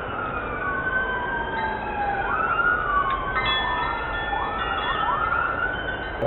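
Emergency vehicle siren wailing, its pitch sliding slowly down and then sweeping up again in quick rises, over steady background noise.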